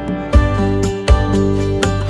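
Background music: acoustic guitar with a steady beat, a strong low hit roughly every three quarters of a second.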